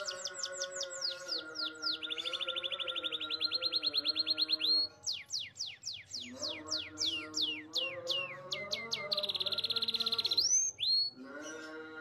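Domestic canary singing a rolling song: fast trills of rapid repeated notes, a long held trill between about two and five seconds in, then a run of quick downward-sweeping whistled notes and another fast trill near the end.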